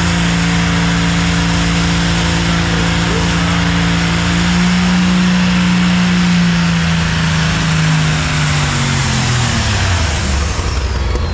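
Diesel big-rig semi truck making a drag strip run: one loud, steady engine note that climbs slightly, then falls in pitch over the last few seconds.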